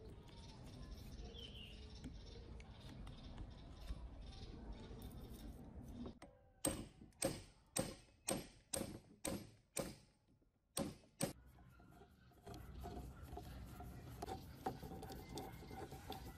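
Hammer striking a hand impact screwdriver: about ten sharp metal-on-metal blows, roughly two a second with a short break before the last two, driving loose a screw in a rusted power-tool motor housing.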